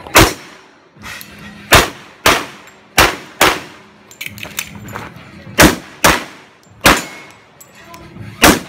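Semi-automatic pistol shots fired in quick strings, nine in all, each followed by a ringing tail, with steel targets clanging. About four seconds in there is a short break with small clicks while the magazine is changed.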